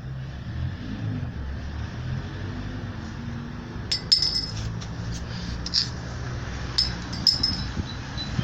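A handful of light clinks, like glass or metal being tapped, starting about halfway through, over a steady low hum.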